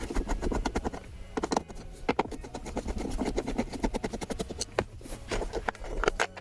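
No. 3 screwdriver turning out screws from a car's plastic center console: a dense run of small clicks and scrapes over a steady low rumble.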